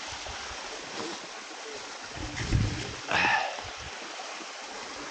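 Steady rush of a stream of running water, with a low thump about halfway through and a brief louder sound just after.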